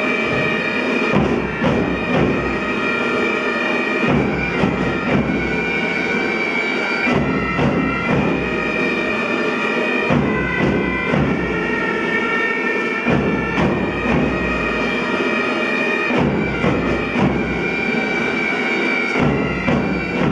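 Pipe band playing: bagpipes sounding a steady drone and chanter melody, with drums beating along.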